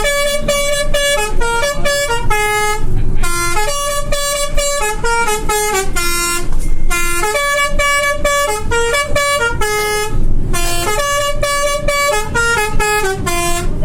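Indonesian 'telolet' musical bus horn playing a tune of short and held notes. The phrase repeats about four times, with brief breaks between.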